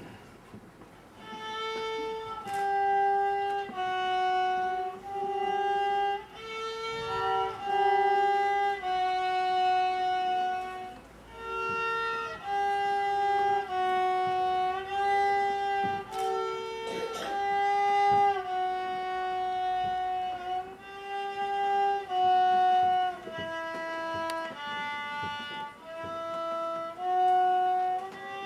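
A beginner's violin playing a simple slow melody unaccompanied, one bowed note at a time.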